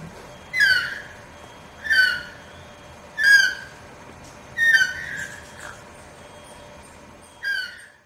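Yellow-throated toucan calling: five short calls, each sliding down in pitch, spaced about a second and a half apart with a longer pause before the last.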